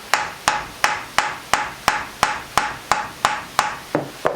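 Rapid, even hammer taps, about three a second, on the stuck cast cylinder of a Suzuki DS125 two-stroke engine, knocking it loose from a tight base gasket. The taps stop just before the end, as the cylinder breaks free.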